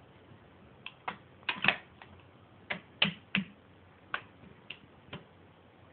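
Parts of an M17 Bushmaster being handled and fitted back together: about ten irregular clicks and knocks, loudest about a second and a half in and again about three seconds in.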